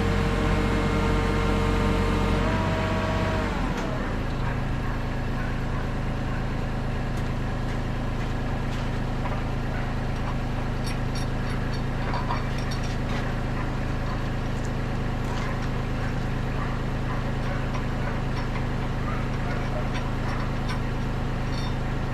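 Kubota KX91-3 mini excavator's diesel engine running steadily. Its pitch drops about three and a half seconds in as it settles to a steady low idle.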